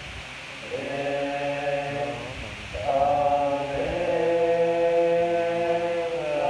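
Buddhist prayer chant sung by voices in unison, in long held melodic notes. It comes in just under a second in, breaks off briefly about two and a half seconds in, then resumes louder on sustained notes that step down in pitch.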